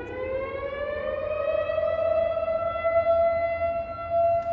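STH 10 civil defense siren sounding at a distance, a single tone rising in pitch as it winds up during the first couple of seconds, then holding steady at full pitch. It is loud even from about 0.6 miles away.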